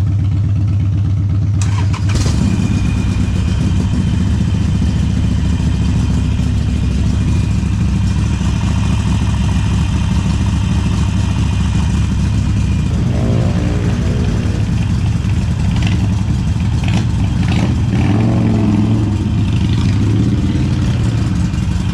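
A motorcycle engine idling steadily, loud and close.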